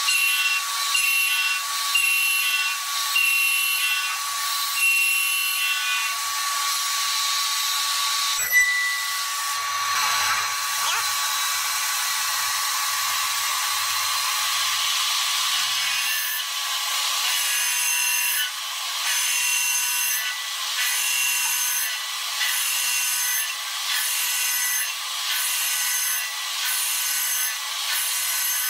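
CNC milling machine's end mill cutting the blades of a metal turbine disk: a steady high whine with a cutting noise that comes and goes in regular pulses about once a second.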